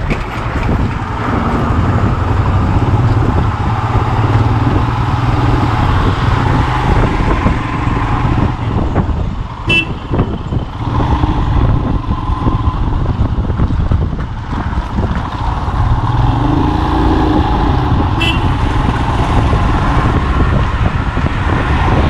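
Motorcycle running under way over a badly broken road, a steady engine drone mixed with road and wind noise. Two short high toots cut through, about ten and eighteen seconds in.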